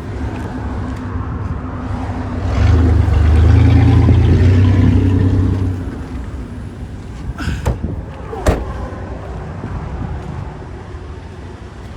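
A vehicle engine running with a steady low hum that grows louder for a few seconds near the start, then eases off; a few sharp knocks come about 7.5 and 8.5 seconds in.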